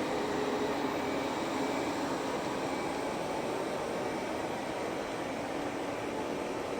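Robot vacuum cleaner running with a steady whir.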